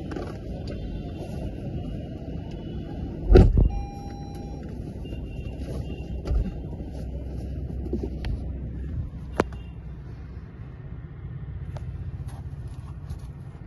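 Inside a car cabin: the steady low rumble of the car running while stationary. About three seconds in a car door shuts with a heavy thump, followed by a brief electronic tone, with a softer thump a few seconds later.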